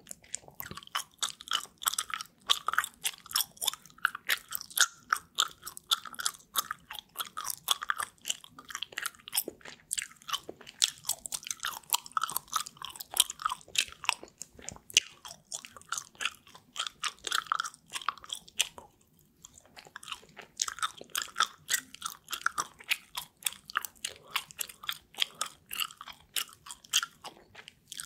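Close-miked gum chewing: rapid, wet mouth clicks and snaps, several a second, with one short pause about two-thirds of the way through.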